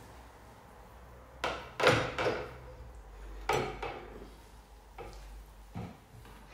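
Tableware knocking and clinking: about six sharp knocks of dishes and chopsticks against plates and the hot pot while food is moved into the pot, the loudest a little under two seconds in.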